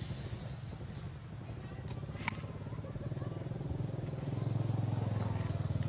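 Low, steady engine drone with a fine regular pulse, growing louder in the second half, with a sharp click about two seconds in. A run of quick, rising, high chirps repeats several times a second near the end.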